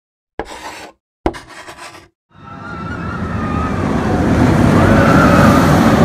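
Animated intro sound effects: two sharp hits about half a second and a second in, each cut off short, then a rushing, rumbling sound like a passing vehicle that swells steadily louder from about two seconds in.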